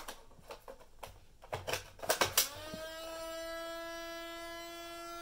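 Clicks and a few sharp snaps as the film cartridge is seated and the door of a Kodak EK6 instant camera is shut. About two and a half seconds in, the camera's electric eject motor starts with a brief rising whine and then runs on as a steady hum. It runs without ejecting the dark slide: the camera is malfunctioning and will not switch off.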